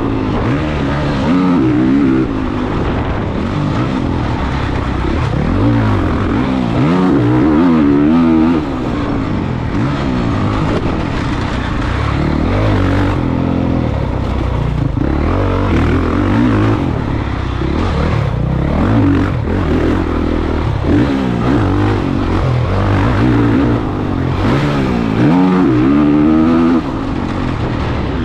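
Honda CRF450 motocross bike's single-cylinder four-stroke engine revving hard and easing off over and over, its pitch rising and falling with the throttle and gear changes, with sharp throttle cuts about nine seconds in and near the end.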